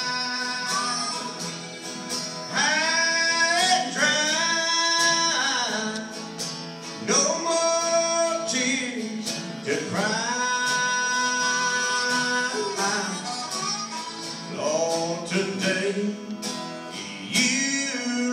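Country song's instrumental break: a harmonica solo, its notes sliding up into long held tones, over an acoustic guitar.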